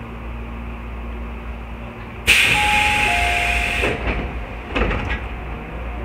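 Tobu 8000 series train's pneumatic sliding doors opening: a sudden loud hiss of air about two seconds in, with a two-note door chime over it, the second note lower than the first. A few knocks follow about a second later as the doors slide open.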